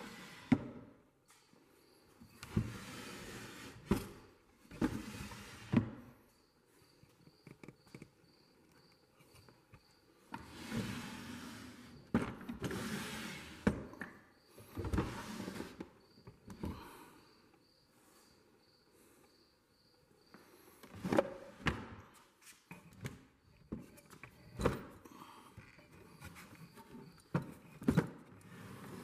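Wooden cabinet drawers pulled open and pushed shut by hand, several times over: each goes as a sliding rasp lasting a second or two, ending in a sharp knock as the drawer hits its stop.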